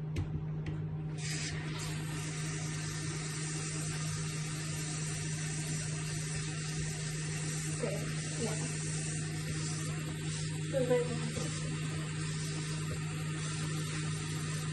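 Tap water running steadily into a kettle, starting suddenly about a second in, over a steady low hum.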